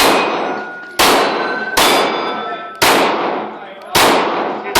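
9mm pistol shots, about one a second, five in all, each hit ringing off a steel target plate with a clang that decays over most of a second.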